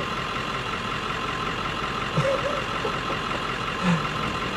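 Pickup truck engine idling, a steady drone with a few fixed tones in it. Two brief low sounds break in, about two and four seconds in.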